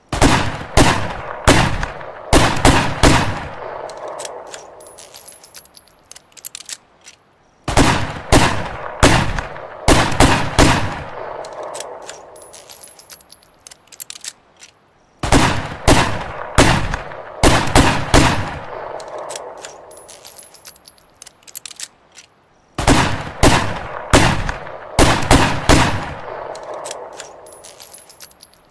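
Ruger Redhawk revolver shots: a quick string of loud cracks with an echoing tail that fades over a few seconds, the same sequence repeating four times about every seven and a half seconds.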